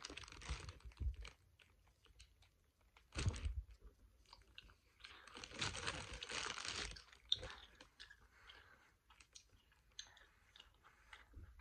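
A child chewing a mouthful of giant gummy worm close to the microphone, in three short bouts about three seconds apart, with small mouth clicks between them.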